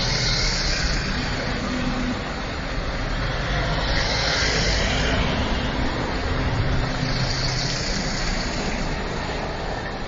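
Vans driving slowly past close by: steady engine hum with tyre and road noise.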